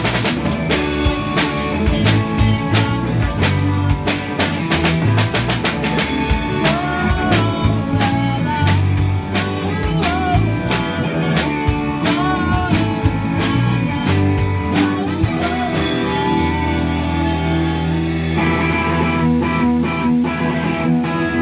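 A small band playing rock: drum kit with cymbals, guitar and electronic keyboard. About three-quarters through, the drumming thins out under a held low note, then picks up again.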